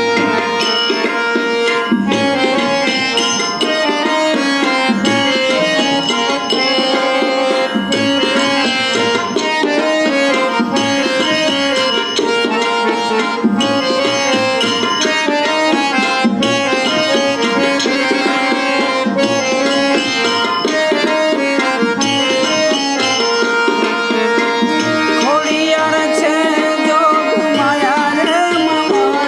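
Instrumental garba music: tabla-like hand drums keep a steady rhythm under a sustained melodic instrument.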